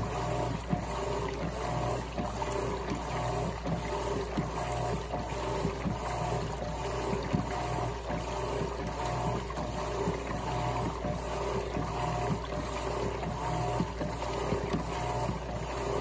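Electrolux LTC15 top-loading washing machine running with a load of water: a low motor hum under water churning and sloshing in a steady repeating rhythm, with frequent small splashes and knocks.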